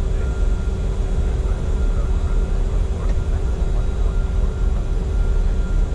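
Steady flight-deck noise of a Bombardier Challenger 605 business jet on approach: a continuous rush of airflow with a low rumble and a steady hum.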